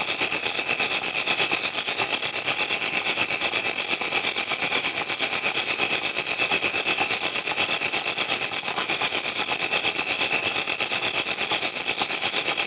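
A chorus of crickets chirping in a steady, high-pitched drone of rapid, even pulses.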